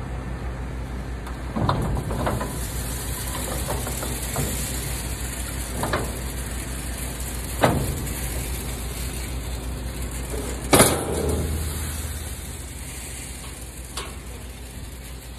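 A farm machine's engine running steadily, with a few sharp knocks and clunks over it, the loudest about eleven seconds in.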